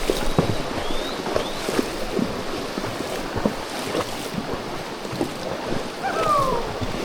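River water rushing and splashing around wading horses, with many small splashes throughout. Two brief high chirps come about a second in, and a short falling call comes near the end.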